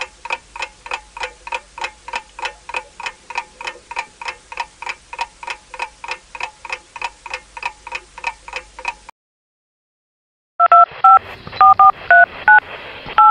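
Clock-ticking sound effect, about four even ticks a second, that stops abruptly about nine seconds in. After a brief silence, a mobile phone keypad plays touch tones as a number is dialled: about seven short two-note beeps in quick, uneven succession.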